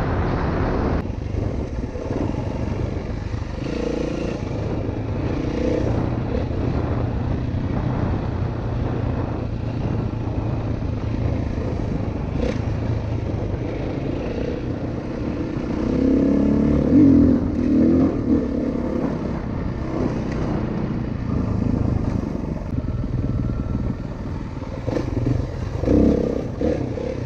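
Single-cylinder four-stroke dirt bike engine running while riding, its revs rising and falling with the throttle, with louder surges about two-thirds of the way through and again near the end.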